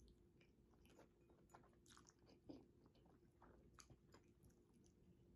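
Faint chewing of saucy instant noodles: soft, irregular wet mouth clicks, one a little louder about halfway through.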